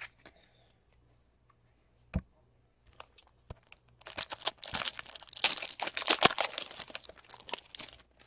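A foil wrapper on a Topps Chrome trading-card pack is torn open and crinkled: dense crackling that lasts about four seconds, from about halfway through. A single knock comes about two seconds in.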